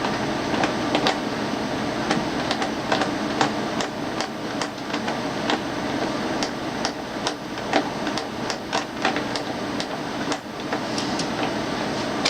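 Irregular metallic clicks and clinks as parts inside a stripped-down water cooler's metal cabinet are worked loose by hand, over a steady background hum.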